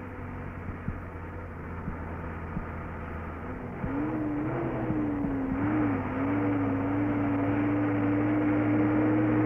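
Bedford KM lorry engine running as the lorry approaches. About four seconds in it grows louder and its note rises and wavers, then holds steady and louder still as the lorry draws close.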